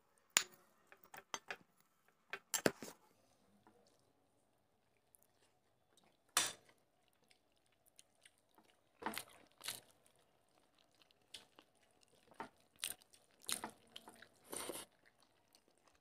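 Faint wet eating sounds of two people eating rice and fish by hand: scattered soft smacks and clicks of chewing and of fingers mixing rice, one every second or so, more often in the last few seconds.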